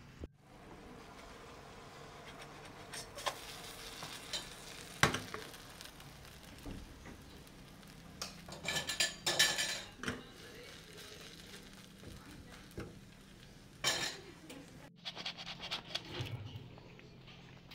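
Potato and egg fritter frying in a non-stick pan with a faint steady sizzle. A few sharp clinks and scraping clatters of metal against the pan come through, the busiest stretch just after the middle.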